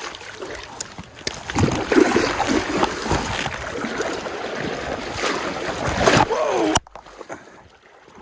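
Water splashing and sloshing as a hooked king salmon is hauled in through the shallow stream water, cutting off abruptly about seven seconds in.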